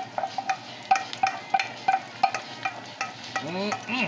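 Utensil stirring chicken and vegetables in a wok, knocking and scraping against the metal about three times a second with a short ring on each stroke, as teriyaki sauce is mixed in.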